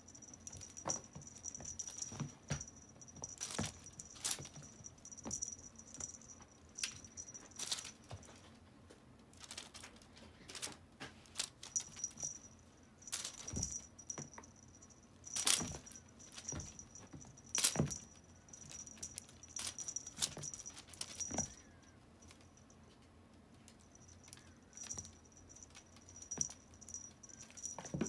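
Russian Blue kitten scrabbling and pouncing on a rug after a wand toy: irregular scratches, taps and clicks of paws and claws, some sharper than others. A faint high steady whine comes and goes behind them.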